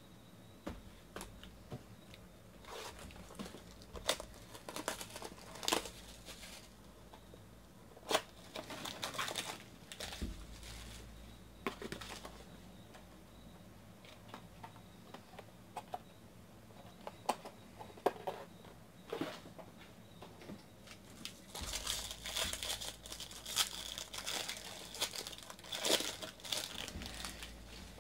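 Trading-card pack wrappers being torn open and crinkled by hand, in irregular bursts with sharp little clicks, loudest near the end.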